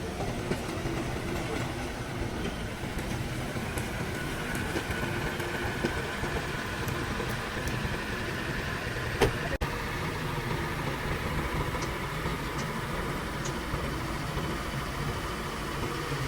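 An engine running steadily, with one sharp click about nine seconds in.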